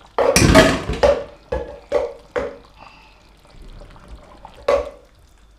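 A spatula stirring thick bitter leaf soup in a pot, a wet sloshing in the first second, then a run of hard knocks about half a second apart and one more near the end.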